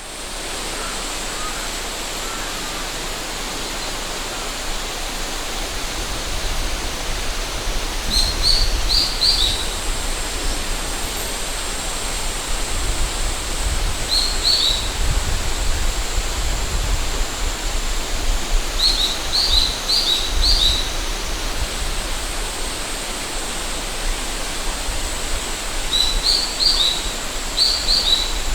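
River water rushing steadily, with a thin high cicada drone running through it and a small bird singing short bursts of chirping notes four times. Wind gusts rumble on the microphone through the middle.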